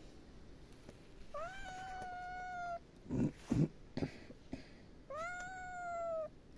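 A kitten meowing twice, two long drawn-out meows a few seconds apart, each rising at the start and then held steady: begging for more food. A pair of short dull thumps, the loudest sounds here, comes between the two meows.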